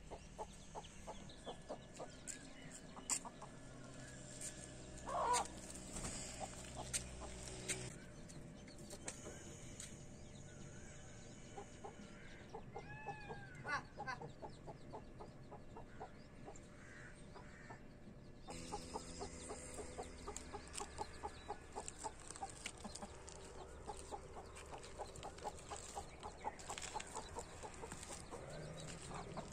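Mother hen clucking faintly now and then, short calls scattered among small ticks.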